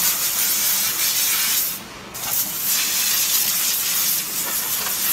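Compressed-air blow gun hissing in two long blasts, with a short break about two seconds in, blowing dust off a freshly carved door panel.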